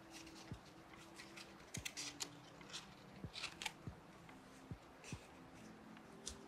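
Faint, scattered taps and clicks as a piece of paper is pressed down by hand onto a collage board with a small metal blade.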